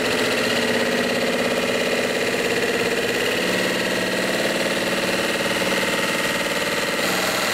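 Electric drill motor running steadily at a small fraction of its power as the bit bores through a limestone block and breaks through, a continuous even hum whose tone shifts slightly about three seconds in.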